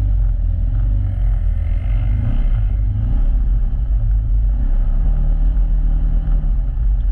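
Side-by-side UTV's engine and drivetrain running steadily under way on a dirt trail, a constant low rumble heard from inside the open cab.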